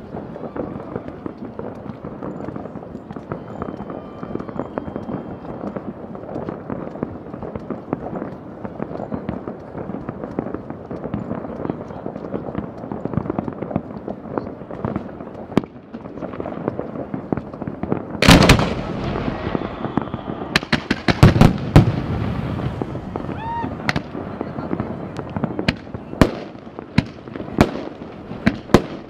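Fireworks: a steady crackle of many small pops and bangs. About two-thirds of the way in comes one loud bang, then a quick cluster of loud bangs, then sharp single reports roughly a second apart.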